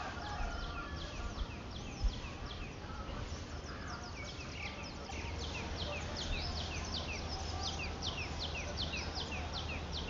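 Country chicken chicks peeping: a steady run of short, high, falling peeps, several a second, growing denser about halfway through. A single brief knock about two seconds in, over a low hum.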